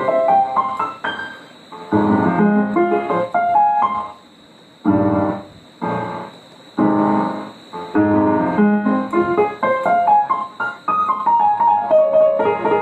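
Roland XPS-10 keyboard playing a piano voice: quick runs of notes, then three loud chords after a short pause about four seconds in, then more runs.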